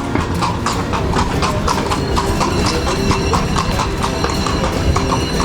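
A horse's hooves clip-clopping on stone paving, a steady, even run of hoof strikes at a walking pace.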